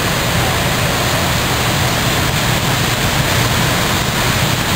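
Many go-kart engines running together as the pack laps the ice, blended into a loud, steady wash of noise with no single engine standing out.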